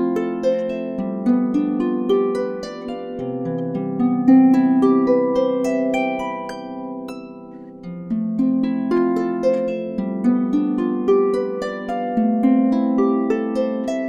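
Solo Dusty Strings FH36S lever harp playing a gentle melody over plucked, ringing notes. The playing eases off and grows softer about six to eight seconds in, then picks up again with a new phrase.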